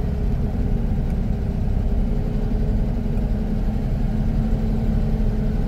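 Mercedes-Benz 1418 4x4 truck's diesel engine running steadily under way, a continuous low drone with a steady hum.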